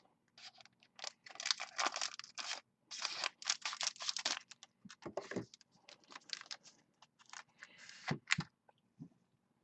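Packaging of a sealed trading card box being torn open and crinkled, in irregular rustling bursts.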